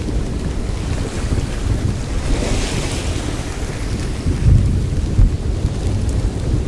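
Steady deep rumbling noise ambience, with a hiss that swells and fades about two and a half seconds in and heavier low rumbles around four and a half and five seconds in.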